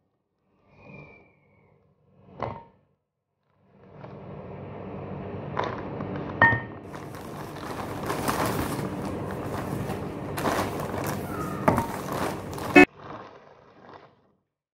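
Thin plastic shopping bag rustling and crinkling as a hand rummages inside it, with several sharp knocks, some with a brief metallic ring. The rustling starts about four seconds in and cuts off suddenly near the end.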